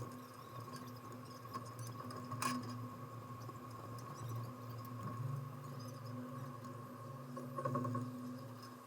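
Soft ambient background music of sustained low notes, the chord shifting about halfway through, with a few faint clicks.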